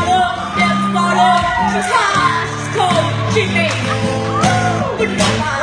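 Acoustic guitar chords with a harmonica playing an instrumental solo over them, the harmonica's notes bending up and down.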